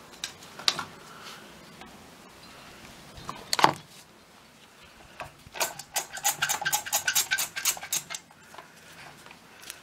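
Metal caulking gun being loaded with a sealant cartridge: clicks and rattles from the plunger rod and trigger mechanism. A sharp clack comes a few seconds in, then a quick run of metallic clicking lasts about two and a half seconds.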